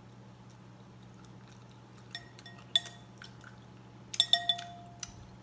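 Clinking of tableware: a few light clinks about two seconds in, a louder one shortly after, and a quick cluster near four seconds with a brief ringing note, over a steady low hum.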